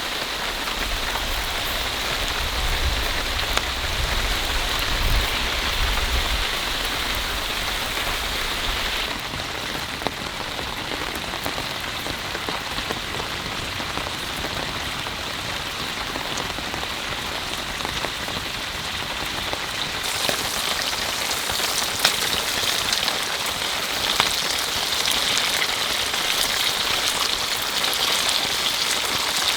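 Heavy rain falling steadily, a dense patter with individual drops ticking through it. A low rumble sits underneath for the first several seconds, and the character of the rain changes abruptly about 9 and 20 seconds in.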